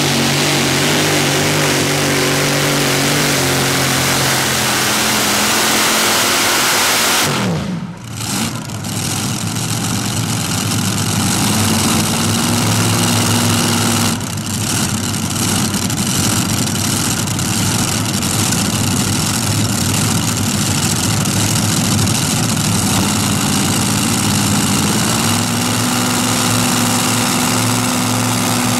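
Modified pulling tractor's engine running hard under load while pulling a sled. About seven seconds in the engine note falls sharply as the throttle is cut at the end of the pull. The engine then keeps running at a lower speed, picking up briefly twice.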